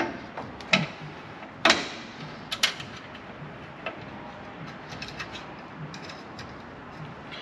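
Small metal clicks and clinks as battery fittings are handled and fastened by hand: a few sharp clinks in the first three seconds, then only faint light ticks.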